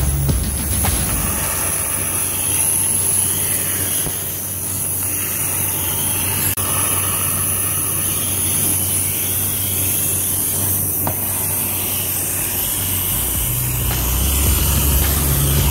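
Bearing-in-a-bearing fidget spinner, several nested steel ball bearings, spinning freely on a tabletop with a steady whir.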